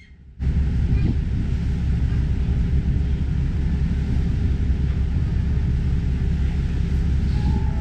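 Steady low rumble of a passenger car ferry under way, its engine and motion noise heard from the deck. It cuts in suddenly about half a second in.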